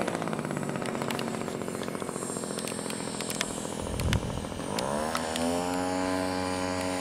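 Engine of a yellow Cub-style RC model airplane running steadily as the plane flies low past. Its pitch climbs about halfway through and then holds higher.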